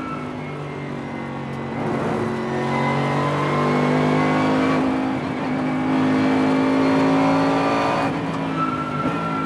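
Bentley Continental GT3's twin-turbo 4.0-litre V8 racing engine pulling hard under acceleration, its note rising, with a gear change about halfway and the engine easing off near the end.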